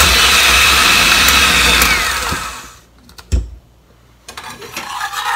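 Handheld electric mixer whipping egg white and sugar in a stainless steel bowl, a steady high whine that winds down when it is switched off about two seconds in. A single knock follows, then light clatter near the end.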